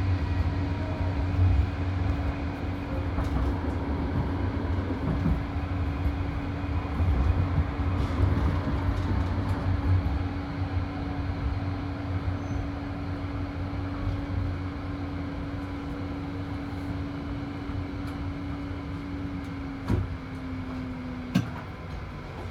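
Tram running along its track, heard from on board: a low rumble of wheels on rail under a steady motor hum that drops a little in pitch near the end. Two sharp clicks come near the end.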